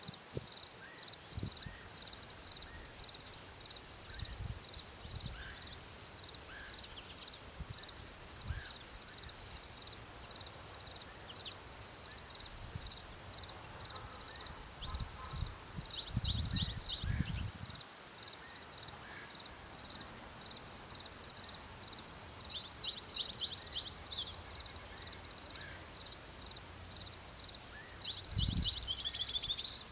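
Garden ambience: a steady high chorus of insects chirping, with brief bursts of bird chirps three times, and a few low thumps.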